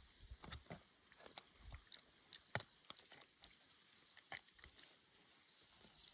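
Faint, irregular small clicks and crunches of food and utensils at a meal, with one sharper click about two and a half seconds in.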